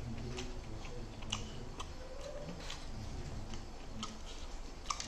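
Close-miked eating sounds: chewing with irregular wet mouth clicks and smacks.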